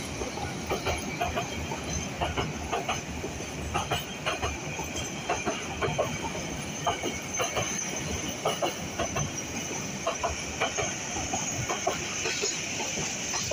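Intercity passenger train coaches passing close by, their steel wheels clacking over the rail joints in a steady run of sharp knocks over a rolling rumble and hiss. The knocks thin out near the end.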